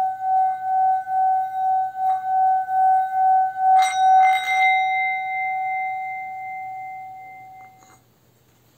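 Singing bowl ringing a steady tone that wobbles in loudness about three times a second. It is struck twice, close together, about four seconds in, bringing out higher tones. The ring then fades and is stopped short near the end.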